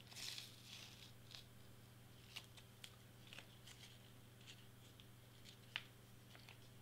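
Faint crinkling and scattered small clicks of a clear plastic carrier sheet and glitter heat-transfer vinyl being handled and peeled, over a low steady hum; otherwise near silence.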